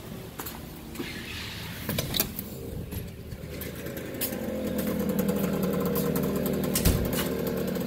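A two-stroke dirt bike engine running steadily, growing louder from about halfway. A couple of sharp knocks sound about two seconds in.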